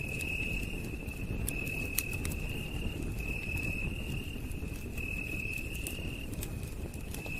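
Campfire crackling, with scattered sharp pops over a low steady rumble, while a night insect trills in short high-pitched bursts of about half a second, repeating every second or so.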